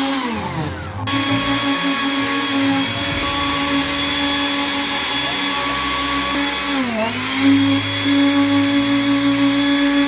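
Electric orbital sheet sander running steadily against a painted car door panel, sanding it down. Its motor tone sags in pitch near the start and dips briefly again about seven seconds in.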